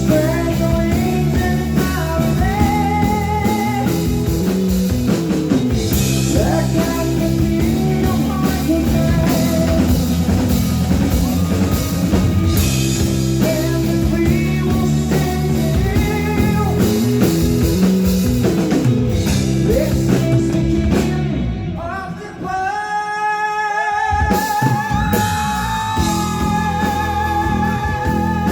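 A rock band playing live, with a singer over electric guitar, bass and drum kit. About 21 seconds in the band drops out briefly, then comes back with long held notes that waver in pitch.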